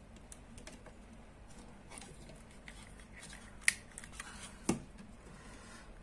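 Small clicks and taps of a screwdriver working the terminals of plastic wall switches, with light handling of wire, and two sharper clicks about a second apart a little past halfway.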